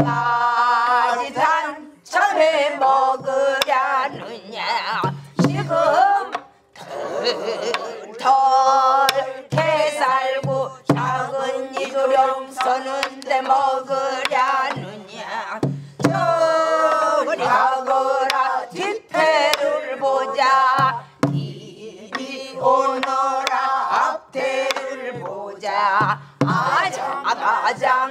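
A woman singing pansori in long, wavering held notes, with the occasional stroke of a stick on a buk barrel drum.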